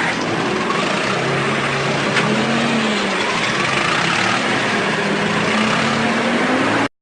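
Loud road traffic: many vehicle engines running together in a dense, steady din, which cuts off suddenly near the end.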